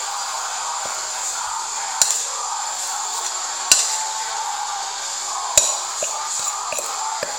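Stainless-steel saucepan knocked sharply three times, roughly two seconds apart, with a few lighter taps near the end, as sticky oat and chocolate flapjack mixture is scraped and tipped out of it into a baking tray. Background music plays throughout.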